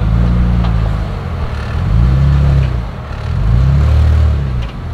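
Jeep Wrangler JK's engine revving in three surges of throttle as it crawls up a boulder step under load, the pitch rising and falling with each surge.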